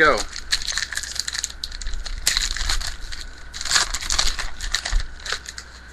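Crinkling and rustling of a foil trading-card pack wrapper and cards being handled, in several spells of crackling.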